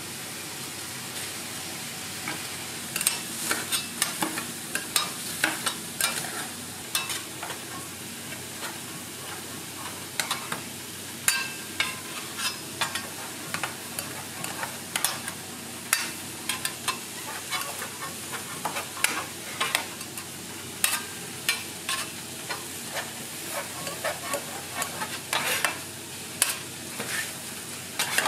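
Ham slices and onions sizzling on a flat steel griddle. From about three seconds in, a metal spatula repeatedly chops, scrapes and taps against the griddle plate, several strikes a second.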